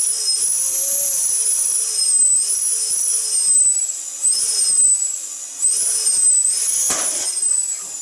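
Electric balloon pump running in spurts as it inflates a long rocket balloon: a high whine whose pitch wavers up and down, stopping briefly a few times. A sharp click comes about seven seconds in.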